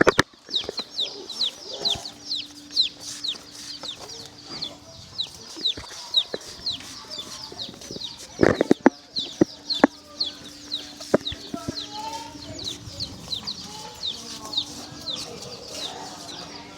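A crowd of baby chicks peeping without a break: many short, high, falling peeps, several a second. A few sharp knocks and bumps come through near the start and about halfway through.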